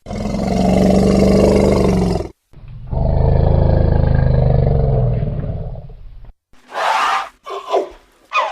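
A big cat roaring: two long, loud, deep roars, the second longer. About six and a half seconds in the clip cuts to a different animal's short, higher-pitched calls.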